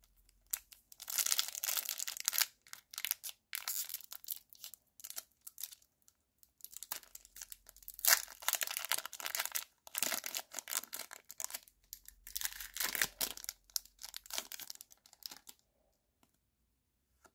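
A foil Pokémon TCG booster-pack wrapper crinkling and being torn open by hand, in irregular crackly bursts with one sharp tear about halfway through.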